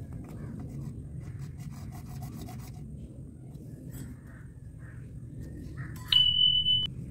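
Faint rubbing and small clicks of gloved hands handling PVC pipe and a ball valve over a low background hum. About six seconds in comes a short, steady high beep, an edited-in sound effect, lasting under a second.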